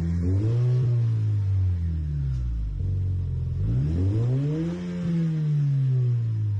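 2019 Lexus RC 300 RWD's turbocharged four-cylinder revved twice through a new APEXI N1 Evolution-X catback exhaust, each rev rising quickly and falling slowly back toward idle, with a deep tone.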